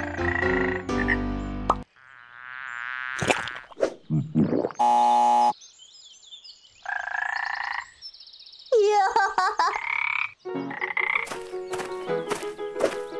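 Frog croaking sound effects: a string of separate calls of varying pitch and length, some wavering, one a short loud buzz, with brief pauses between them.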